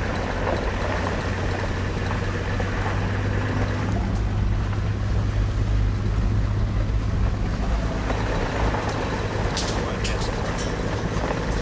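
A ute's engine running steadily with a low hum as it drives, with a few sharp rattles about ten seconds in.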